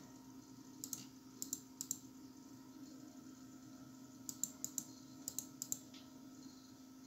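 Scattered short clicks of computer keys and mouse buttons: a few about a second in, then a quicker run of clicks between about four and six seconds in, over a steady low hum.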